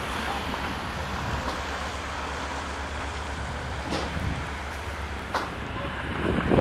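CFR Class 65 diesel-electric locomotive running along the station track, its diesel engine giving a steady drone over the rumble of the train, with two short sharp clicks about four and five and a half seconds in and a swell near the end as it comes closer.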